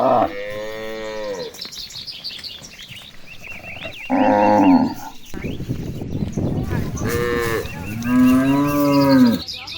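Cows mooing: four separate moos, the longest about a second in and the loudest around the middle and near the end.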